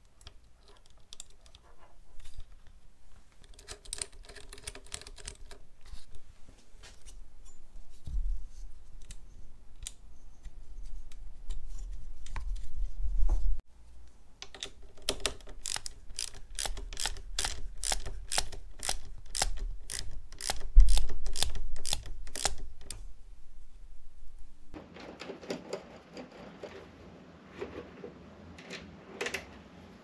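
Small clicks and rattles from hands working on motorcycle wiring, for a stretch coming regularly at about two or three a second, over a low rumble.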